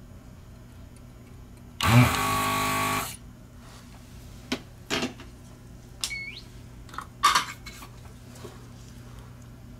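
Electric desoldering gun's vacuum pump spins up and runs for about a second, sucking solder from the pins of an old Omron mouse switch. A few light clicks and taps of small parts being handled follow.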